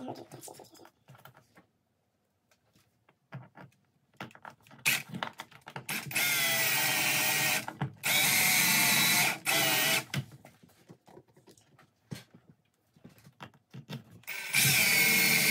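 Electric drill spinning in short runs: three in a row in the middle, each a second or two long, and one more near the end. Small handling clicks fall between the runs.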